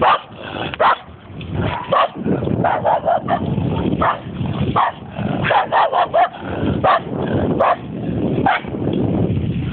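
A dog barking over and over in short, irregular barks, some coming in quick runs of two or three.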